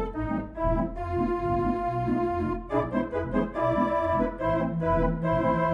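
Organ music: sustained chords over a pulsing bass line, changing to a new chord partway through.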